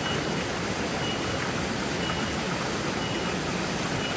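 Steady rushing of a shallow mountain stream flowing over rocks.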